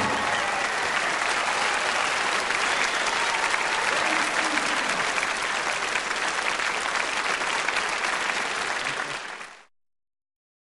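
Audience applauding steadily as the band's last note dies away; the applause fades out and stops about nine and a half seconds in.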